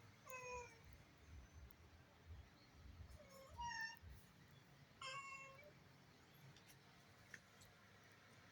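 A cat meows faintly three times, short calls a few seconds apart.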